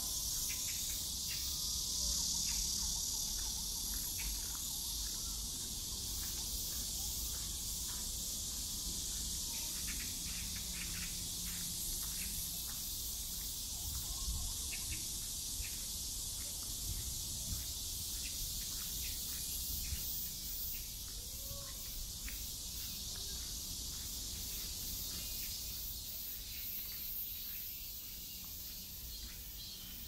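Steady high-pitched chorus of summer insects in park woodland, with faint irregular clicks and a low rumble underneath.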